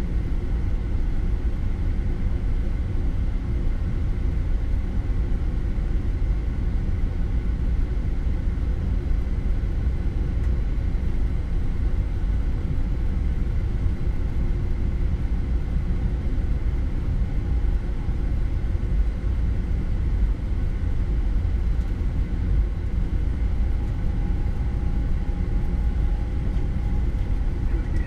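Boeing 787 flight deck while taxiing: a steady low rumble of the engines at taxi power and the wheels rolling over concrete, with a thin steady whine above it and a second faint tone joining near the end.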